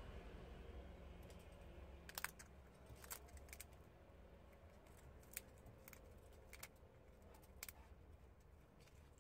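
Prairie dog gnawing a peanut in the shell: faint, irregular crisp crunches and clicks, the loudest about two seconds in, then scattered through the rest.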